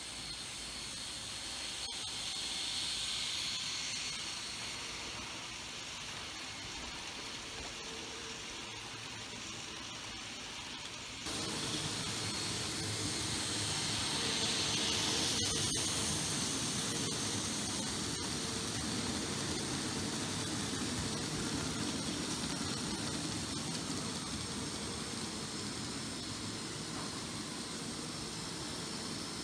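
Z-gauge model train running along the track: a high, hissing whine of its tiny motor and wheels on the rails. It swells as the train passes close. The sound steps up abruptly to a louder level about 11 seconds in.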